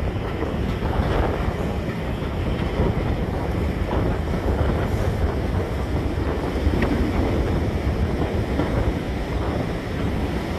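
Wind buffeting the microphone held out of an open window of a moving train, over the steady rumble of the carriage running along the track.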